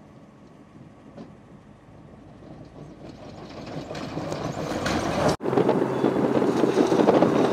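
Electric off-road race car with twin 9-inch DC motors driving fast over dirt and rock: a rough, noisy rush of tyres and drivetrain with no engine note, growing steadily louder as it approaches. It cuts out briefly about five seconds in, then comes back loud and close as the car passes.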